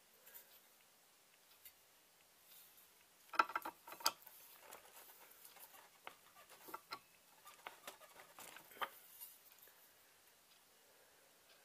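Light handling noise: scattered small clicks and taps as the knife parts are handled at the bench. The sharpest cluster of clicks comes about three and a half seconds in, and fainter ones follow for several seconds.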